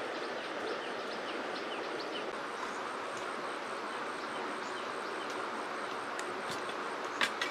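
Forest ambience: a steady rushing hiss, with a bird repeating short, high, falling chirps about three times a second through the first half, and a very high, rapidly pulsing insect drone. A single sharp crack comes near the end.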